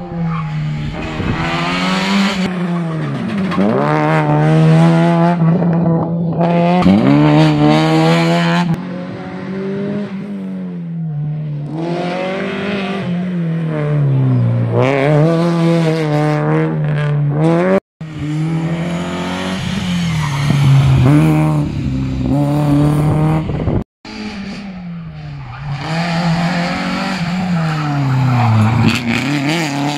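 Small hatchback rally cars passing one after another through a hairpin, engines revving hard: the pitch drops as each car brakes and shifts down for the bend, then climbs as it accelerates away. Several short passes follow each other with abrupt cuts between them.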